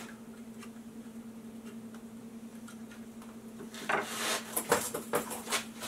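Hands working with small parts and tools at a workbench: a cluster of clicks, taps and rustling starting about four seconds in, loudest near five seconds, over a steady faint hum.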